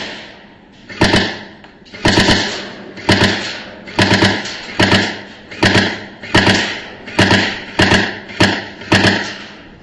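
Airsoft gun firing about a dozen shots or short bursts, roughly one a second and slightly irregular, each a sharp crack with a ringing echo that dies away.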